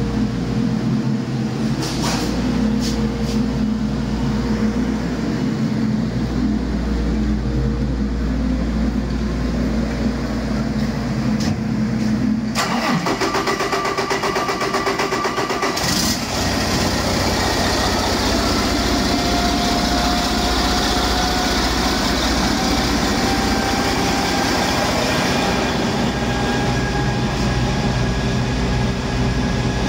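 Detroit Diesel DD13 inline-six truck diesel running: a steady idle for about the first twelve seconds, then its note changes and from about halfway a high whine climbs slowly in pitch as the engine speeds up.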